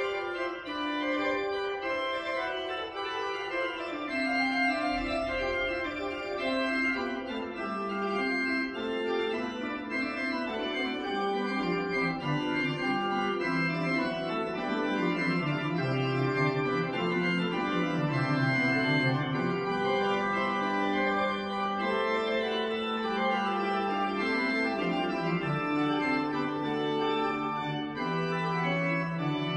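Pipe organ playing a slow piece of held chords over a bass line that moves step by step; the lowest notes come in about five seconds in.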